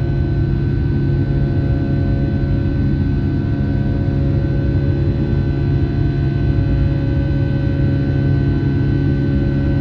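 Steady cabin drone of a Boeing 757-200's jet engines running, with several steady whining tones over a low rumble, heard from inside the passenger cabin.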